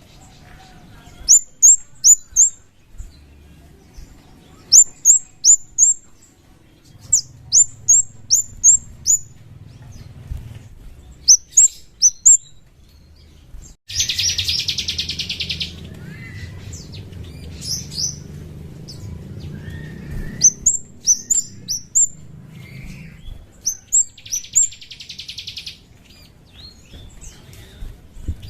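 Scarlet-headed flowerpecker (kemade) calling: sharp, high, thin notes in quick runs of three or four, repeated every second or two. Twice a dense, buzzy rattling trill lasting about two seconds cuts in, lower in pitch.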